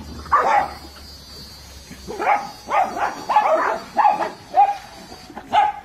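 Several small dogs barking: about a dozen short, high barks at uneven intervals.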